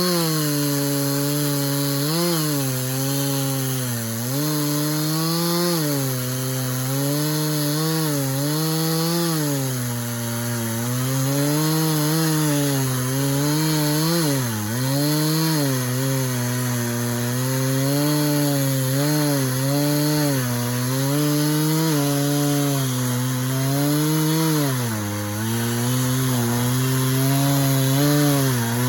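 Stihl chainsaw in a Granberg chainsaw mill, running flat out as it rips a cant lengthwise into boards. The engine pitch sags and recovers again and again under the load of the cut, with a few deeper dips along the way.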